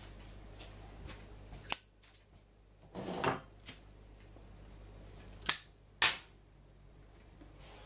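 About five sharp metallic clicks and knocks from scope mount ring parts being handled and set down, spread out over several seconds, the loudest near the end.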